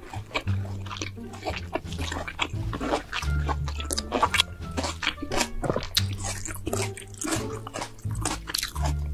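Close-miked chewing of roast pork belly, full of quick sharp crunches and wet smacks, over background music with a steady bass line.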